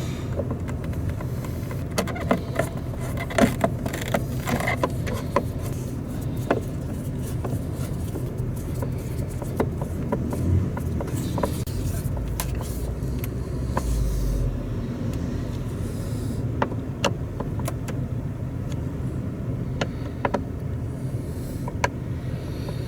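Inside the cab of a 2012 Ford Expedition on the road: a steady low rumble of road and engine noise, with scattered light clicks and ticks, most frequent in the first few seconds.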